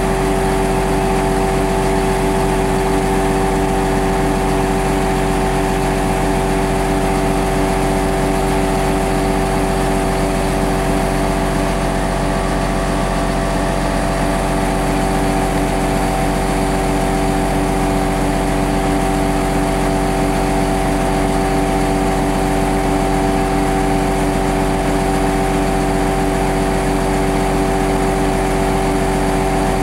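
Heavy diesel engine running steadily at constant revs, with a steady whine over its drone.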